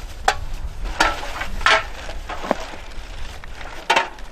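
Aluminium drink cans clinking and crunching as they are picked out of rubbish and dropped into a plastic sack, with plastic rustling and crackling between. About five sharp knocks, the loudest about a second in, in the middle and near the end.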